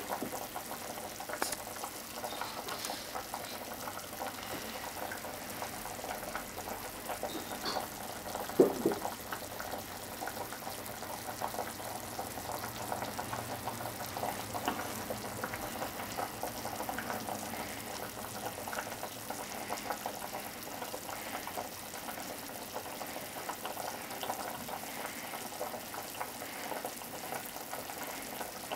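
Steady bubbling of a pot on the boil, with small crackles throughout. A single knock with a short ring about eight and a half seconds in.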